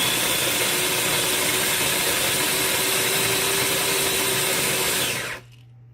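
Sboly electric conical burr coffee grinder running steadily as it grinds coffee beans, then shutting itself off about five seconds in when its cup-amount timer runs out.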